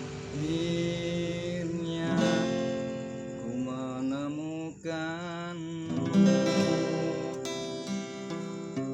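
Acoustic guitar playing, picked and strummed, under a voice holding long notes with vibrato.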